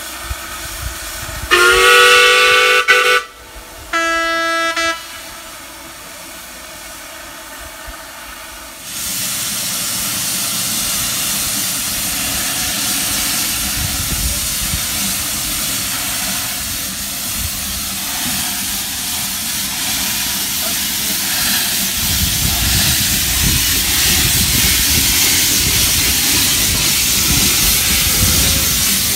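Quarry Hunslet steam locomotive's whistle blown twice, a longer blast then a shorter, lower one, followed about nine seconds in by a loud, steady hiss of steam that carries on, with a low rumble joining it later.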